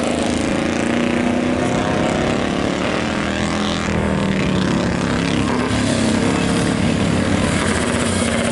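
Vintage racing motorcycle running loudly as it approaches and leans through a road corner, its engine note shifting up and down with the throttle.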